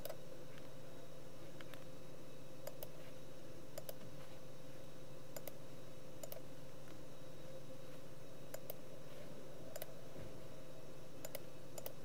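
Computer mouse clicking: sharp clicks at irregular intervals, several in quick pairs, over a steady low hum.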